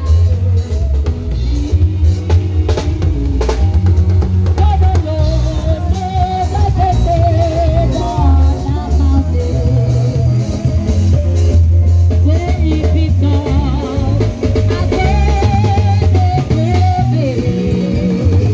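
Live band music: a woman singing into a microphone with a wavering melody over a drum kit, electric guitar and a heavy bass line.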